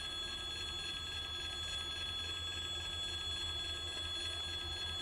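Level-crossing warning bell ringing steadily, a continuous high tone warning of an approaching train, over a low rumble.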